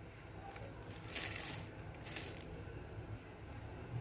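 Two short bursts of dry rustling and crackling, about a second in and again about two seconds in, as crisp fried shallots are picked up by hand and sprinkled over the dish, over a low steady hum.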